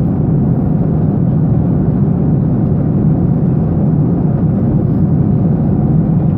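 Steady cabin noise of a Boeing 737-800 in flight, heard inside the cabin at a window seat: a deep, even rumble from its CFM56-7B turbofan engines and the air rushing past the fuselage.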